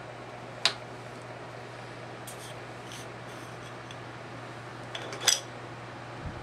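Sharp clicks and light taps of makeup containers being handled, the loudest one under a second in and another near the end, over the steady hum of an electric fan running on low.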